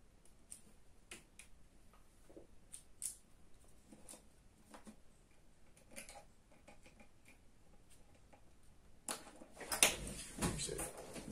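Scattered light clicks and taps of small parts and tools being handled, the sounds of working inside an iPod Video. A louder cluster of clattering and rustling comes about nine seconds in.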